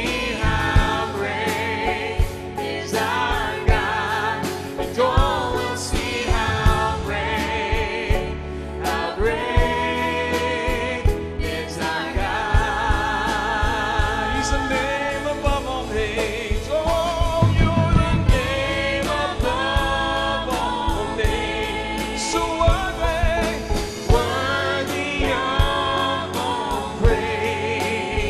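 Live worship band playing a contemporary praise song: several voices singing together over acoustic guitar and a drum kit with a steady beat.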